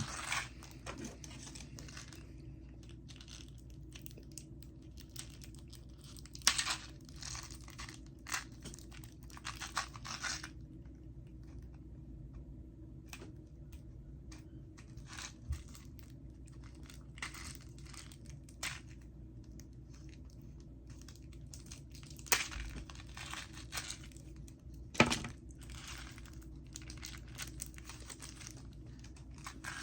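Snack packaging crinkling and being torn open in short spells, with a couple of sharp clicks.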